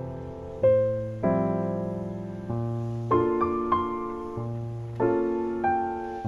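Background music: a gentle piano playing slow chords, each struck and left to fade.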